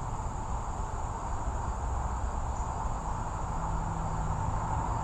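Steady insect drone, like crickets, over a constant low rumble, with no distinct events.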